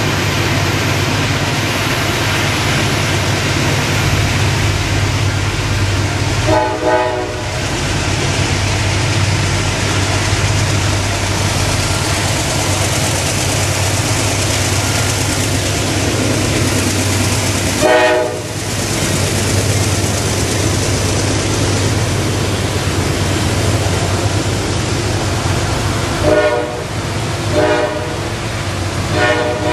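CSX freight train's diesel locomotive running with a steady low drone as it approaches and passes, its horn sounding short chord blasts: one about seven seconds in, one about eighteen seconds in, and three more in quick succession near the end as the covered hopper cars roll by.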